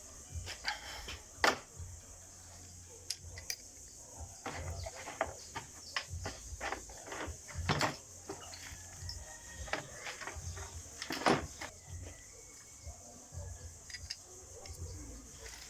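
Irregular clicks and knocks of metal parts and hand tools being handled while a diesel injection pump is reassembled, the sharpest about a second and a half in and again near eleven seconds, over a steady high hiss.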